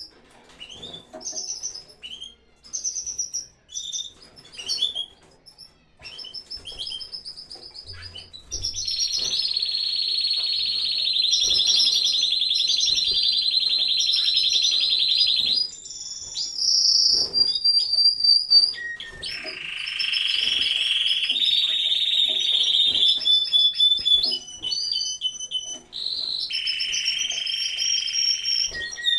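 Canaries, Spanish timbrados, singing together in a breeding aviary. Short chirps and phrases at first, then from about a third of the way in, long rapid rolling trills held for several seconds, with several birds overlapping.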